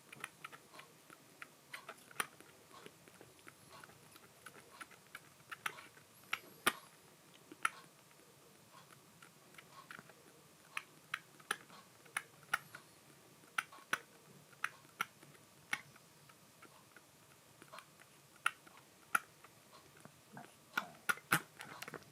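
A kitten eating soft weaning food, with irregular wet clicks and smacks of chewing and licking. Several of them come in quick succession near the end.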